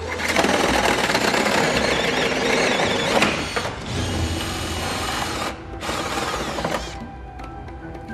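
BRINKO hole saw on a cordless drill cutting through a stainless steel sink top: loud grinding of the saw teeth on the metal. It comes in three stretches that start and stop abruptly, the last ending about seven seconds in, with background music underneath.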